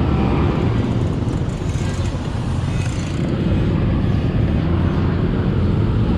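Steady motor traffic on a busy road, a continuous dense rumble of passing vehicles.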